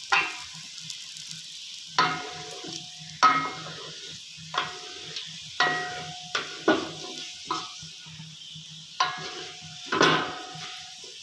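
Onion slices sizzling in hot oil in a metal pot, with a spatula scraping and knocking against the pot about ten times at irregular intervals, the pot ringing briefly after several knocks, as the browned onions are lifted out of the oil.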